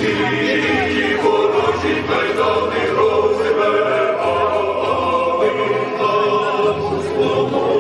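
Many voices singing together as a choir in long held notes.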